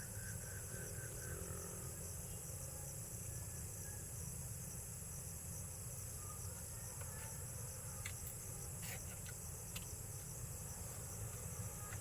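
Night-time chorus of crickets and other insects: a steady, unbroken high trill, over a low steady rumble and a few faint clicks about two-thirds of the way through.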